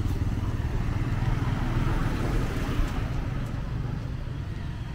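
A motorbike's engine fading as it rides away after passing close by, over the low hum of motorbike traffic on the road.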